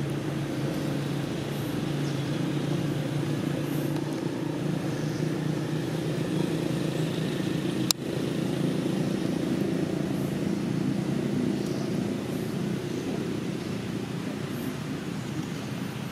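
Steady low engine drone, like idling or passing motor vehicles, with a single sharp click about eight seconds in.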